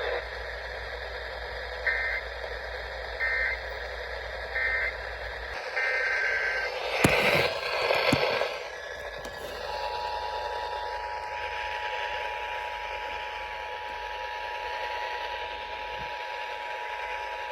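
Emergency Alert System broadcast received over a radio with background hiss: a few short bursts of SAME header data, a crackle in the middle, then the steady two-tone EAS attention signal starting about ten seconds in, marking the start of an alert.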